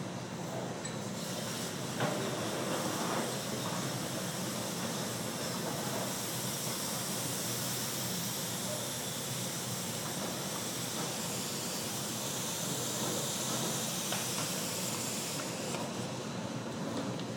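A steady hiss as hot glass is blown into a wooden mold lined with cardboard, which scorches and burns, giving off flames and smoke. There is a sharp knock about two seconds in, and the hiss dies away a couple of seconds before the end.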